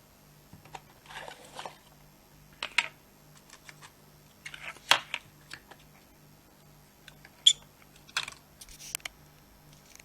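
Hands handling packaging and small kit parts: scattered sharp clicks and taps with short rustles, loudest three times, about three, five and seven and a half seconds in.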